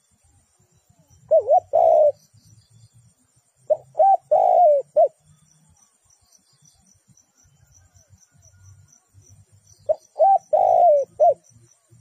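Spotted dove cooing in three phrases of low, rolling coos. The first phrase has two notes; the next two have four notes each, with a longer drawn-out coo in the middle.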